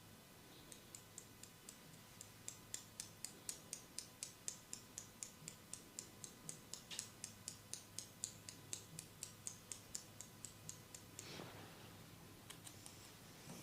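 A steady train of light, sharp clicks, about four a second, that stops about eleven seconds in and gives way to a brief rustle.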